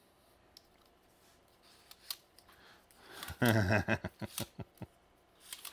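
Light plastic clicks and clatter of a 3D-printed contour gauge's sliding plastic pins being fiddled with in the hands. A brief vocal sound from the man comes about three and a half seconds in.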